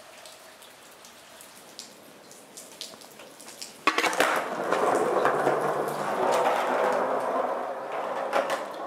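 Light rain with scattered drips, then about four seconds in a sudden clack as a skateboard lands and its wheels roll loudly over wet pavement close by, the rolling noise easing off near the end.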